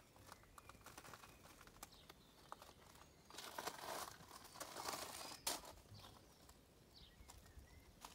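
Faint crunching and rustling of footsteps and handling noise, in two short spells from about three seconds in, with a sharp click about five and a half seconds in.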